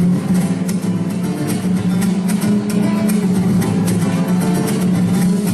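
Mariachi band playing an instrumental passage led by fast strummed guitars, with no singing.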